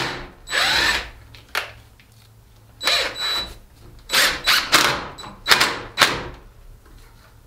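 Cordless drill run in several short bursts with a faint whine, boring into the wood of a small log.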